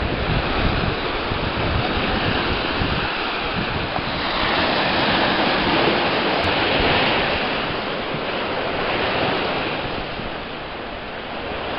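Sea surf washing onto a sandy shore, a steady rush that swells about four seconds in and eases near the end, with wind buffeting the microphone.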